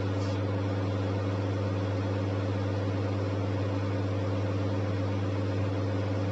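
A steady low hum with a faint hiss behind it, unchanging throughout.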